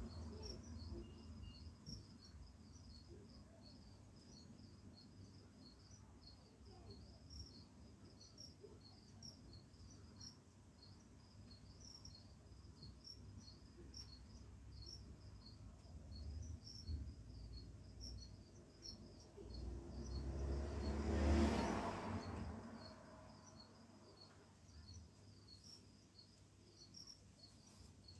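Faint cricket chirping: a short high chirp repeated in an even rhythm over a low hum. About three-quarters of the way through, a louder rushing sound swells up and fades away.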